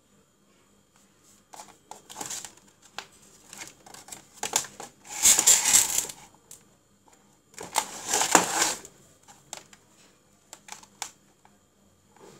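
Handling noise from wires and electronic parts being worked by hand: scattered clicks and taps, with two louder rustling, scraping bursts about five and eight seconds in.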